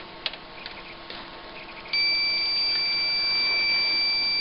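A few light clicks, then a multimeter's continuity beeper sounding one steady high beep for about two and a half seconds, starting about two seconds in. The beep shows that the monitor's power-supply fuse conducts and is intact.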